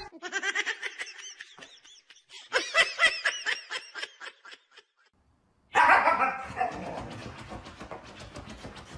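Small dog giving rapid high-pitched yips, several a second, in two runs with a short pause between. After a brief gap, a louder, rougher noisy sound from a husky starts near the end and fades.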